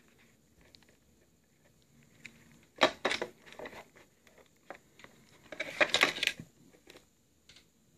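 Leather long wallet being handled, opened, folded and closed: two short clusters of clicks and rustles, about three seconds in and again about six seconds in, with a few small clicks between.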